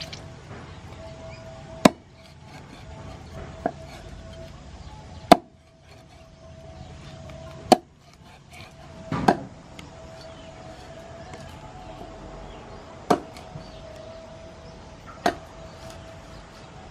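A cleaver chops a whole snakehead fish into pieces on a thick wooden chopping board. There are about six sharp chops a second or two apart, a couple of lighter taps between them, and one quick double chop near the middle.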